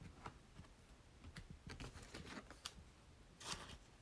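Faint light clicks and taps of baseball trading cards being handled and shuffled in the hands, with a brief soft rustle near the end.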